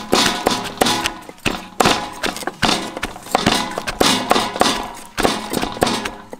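Wooden pestle pounding chopped lemongrass and garlic in a wooden mortar, together with a cleaver chopping on a wooden chopping block: a quick, irregular run of dull knocks, a few each second.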